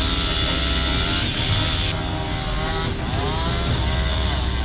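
Chainsaw running, its engine pitch rising and falling as it is revved, over a low steady rumble of engines.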